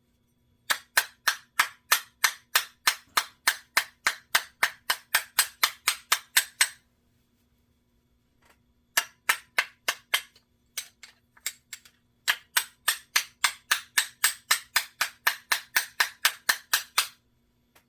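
Sharp, evenly paced taps, about four a second, on the dented metal hood of a Tru Temper 1-2-3 spincast reel, held in the hand while the dent is tapped out. Two long runs of taps with a few scattered ones between.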